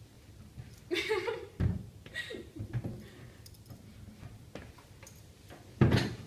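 Handling noises as a microscope in a plastic cover is carried and put into a cupboard: rustling and a few knocks, with the loudest knock near the end.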